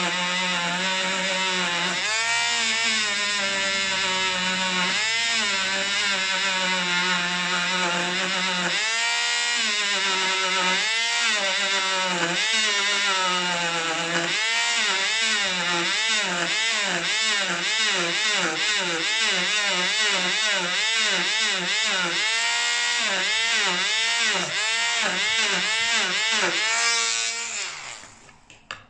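Small Dremel rotary tool whining at high speed as it grinds dirt off steel model-railway rails. Its pitch sags and recovers each time it is pressed against the rail, a few times early on and then about once or twice a second, and it winds down near the end.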